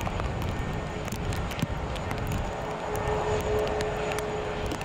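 Jet airliner engine running with a steady low rumble and a steady whine. The whine comes in about a second in and grows louder from about three seconds in.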